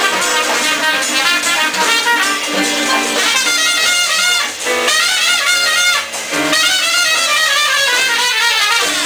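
Trumpet soloing live with a Latin jazz band, in quick runs of notes with two brief pauses about halfway through.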